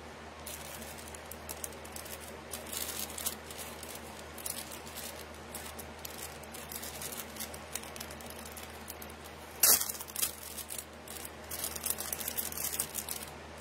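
Small clicks, taps and rustling of jewelry being handled, with one sharp, louder click about ten seconds in.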